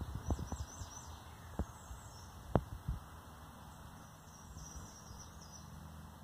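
Faint high bird chirps in two short spells, with a few low knocks in the first three seconds.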